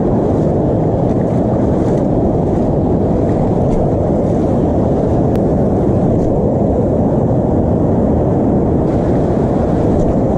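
Steady wind noise buffeting the camera microphone, over ocean surf washing in.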